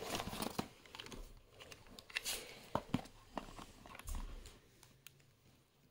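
Faint rustling and crinkling of plastic parcel packaging being handled and opened, with a few light clicks and taps, thinning out near the end.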